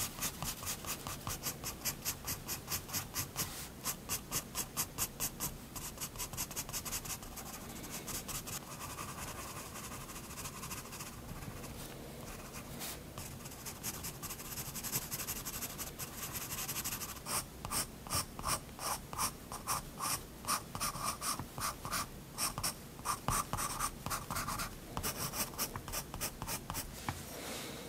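Soft 7B graphite pencil (Prismacolor Turquoise) scratching across sketchbook paper in quick, short hatching strokes, several a second. Through the middle the strokes turn softer and more continuous, like shading, before the quick flicks start again.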